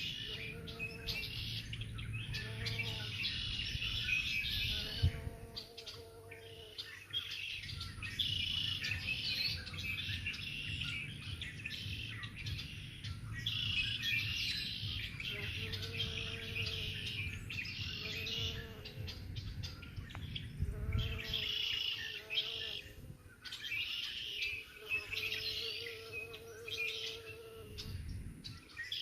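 Songbirds singing and chirping in short phrases that repeat every couple of seconds.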